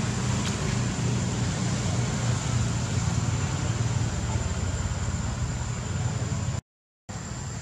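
Steady low hum under an even hiss, with a thin high whine held throughout; the sound cuts out completely for about half a second near the end.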